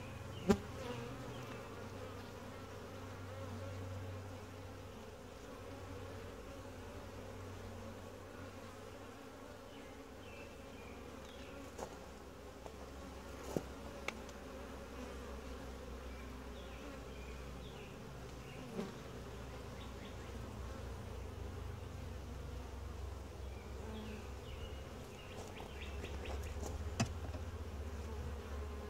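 Steady, low hum of a calm honey bee colony buzzing in an open Langstroth hive as its frames are lifted out. A few sharp knocks break in, the loudest just after the start.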